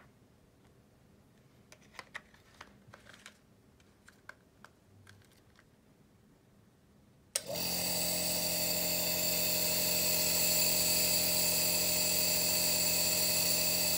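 A few light clicks of plastic nebulizer parts being fitted together, then about halfway through the Microlife NEB PRO compressor nebulizer switches on and runs with a loud, steady hum and hiss of air.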